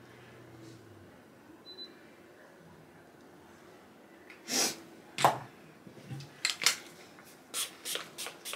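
Quiet room tone, then about halfway through a short rustle followed by a run of small, sharp clicks and taps from small objects being handled.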